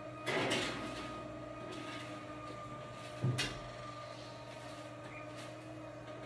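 An oven door handled as a baking tray goes in: a short clattering noise near the start, then a sharp knock about three seconds in as the door shuts. A steady low hum runs underneath.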